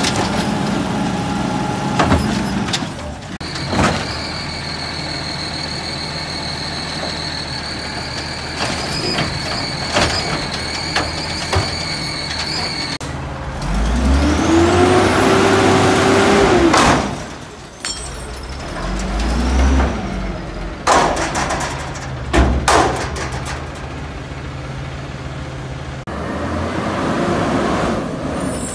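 Garbage truck at work: a steady high whine for several seconds, then the engine revs up and back down twice. Sharp knocks and bangs are scattered throughout.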